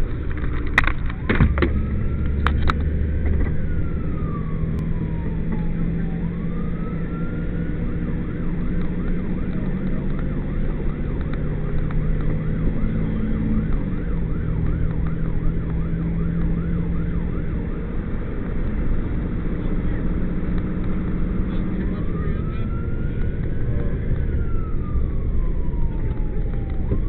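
Fire engine siren going from a slow wail into a fast yelp and back to a slow wail, over a steady low drone of engine and road noise. A few sharp clicks come near the start.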